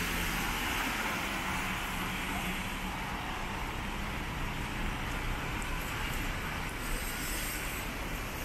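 Steady city traffic noise in the rain: passing cars with a continuous hiss of tyres on wet road.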